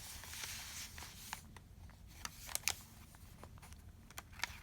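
Paper rustling as the pages and paper inserts of a handmade junk journal are handled and turned, with a few light, sharp clicks and taps about two to three seconds in and again near the end.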